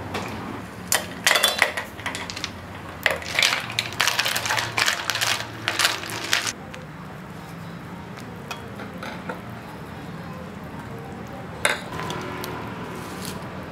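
Snail shells clattering and rattling as they are tipped from a plastic basket into a steel pot of boiling water, a dense run of clicks over a few seconds. Afterwards the pot boils steadily on the portable gas stove, with a single knock later on as herbs are added.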